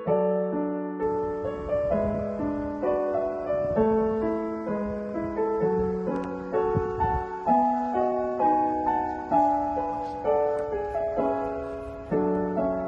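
Background piano music: a gentle melody of single notes over lower notes in an even rhythm.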